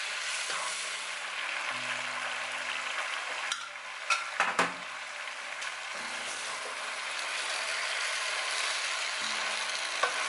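Lamb and silver beet sizzling steadily in a frying pan while they are stirred and tossed, as the leaves cook down and give up their water. About four seconds in, a quick run of sharp clacks of the utensils against the pan.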